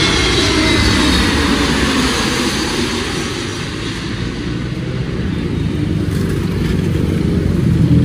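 Airbus A321neo's Pratt & Whitney geared turbofan engines passing low overhead on final approach: loud jet noise with a high whine that falls in pitch over the first two seconds, easing into a steadier rumble. Near the end a low rumble of road traffic passing close grows louder.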